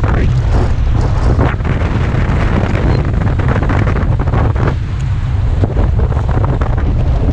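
Wind blowing hard across the microphone in a steady low rumble, with water rushing and splashing along the hull of a Tornado catamaran sailing fast.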